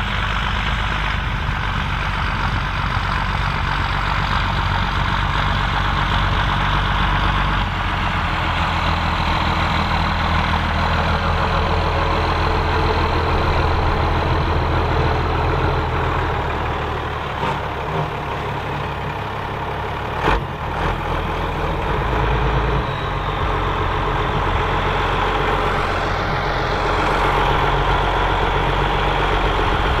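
Ford County 1184 TW tractor's six-cylinder diesel engine running steadily under load while pulling a six-furrow Kverneland plough through the soil. A single brief thump about two-thirds of the way in.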